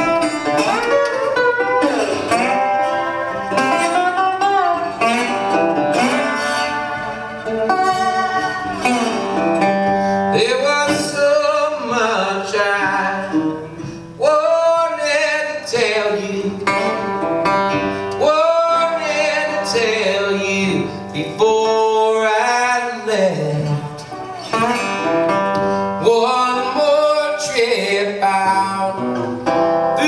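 Single-cone resonator guitar picked and strummed, with a man singing over it.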